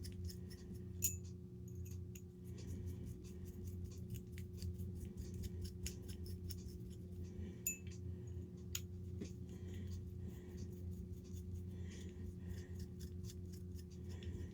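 Small metal tools and parts clicking and ticking as an RC crawler's portal gearbox is taken apart and reassembled by hand, with a few sharper clicks about a second in and around eight seconds. A steady low hum runs underneath.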